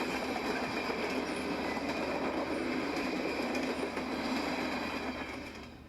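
Train running along the track: a steady rush of wheels on rail with a steady high ringing over it, fading out near the end.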